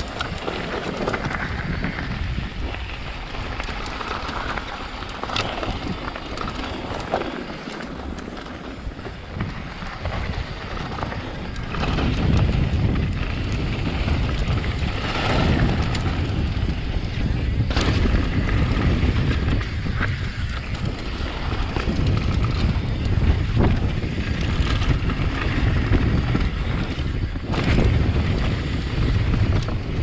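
Wind rushing over an action camera and knobby tyres rolling on a dirt trail during a fast downhill mountain bike descent, with the bike knocking and rattling over bumps. The rumble grows louder and rougher about a third of the way through as speed picks up.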